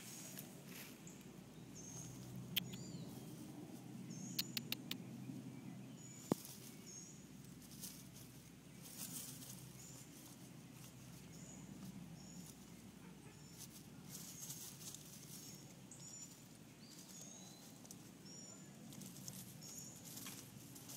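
Armadillo rooting through grass and leaf litter: faint rustling and scratching. Short high chirps recur in the background, and a few sharp clicks come in the first third.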